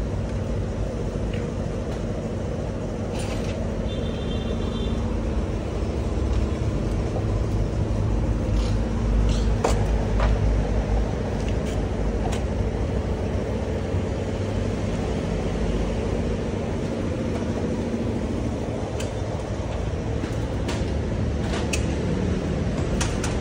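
Car repair workshop background: a steady low rumble with scattered short metal clinks and knocks from tools and parts, and a brief high beep about four seconds in.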